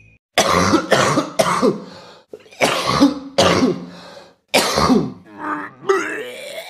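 A person gagging and retching over and over in short, loud heaves, each with a falling, strained vocal pitch.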